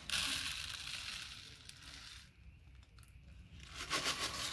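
Dry grain pouring out of a plastic jar into a plastic tray, a hissing rattle of grains. It starts suddenly, eases off after about two seconds, and pours strongly again near the end.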